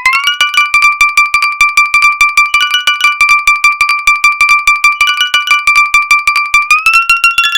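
An iPhone alert tone: a rapid, even train of electronic beeps over a held note, which steps up in pitch just after the start and again near the end.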